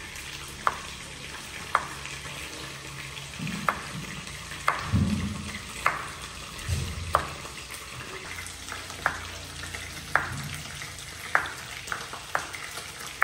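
Kitchen knife slicing peeled chayote on a wooden cutting board: a dozen or so sharp knocks of the blade hitting the board, roughly one a second, over a steady sizzle of food frying in a pan.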